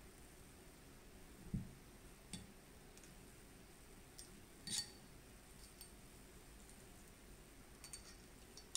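A few faint, small metallic clicks and taps as a steel shotgun receiver and its parts are handled. The clearest is a light metallic clink about five seconds in.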